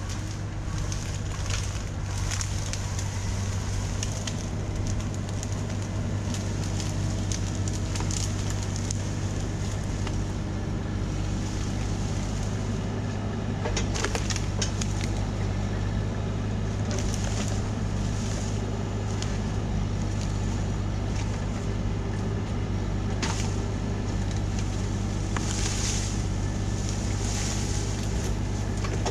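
Bobcat E26 mini excavator's diesel engine running steadily under work, with a few sharp cracks, one about halfway through and another a few seconds later.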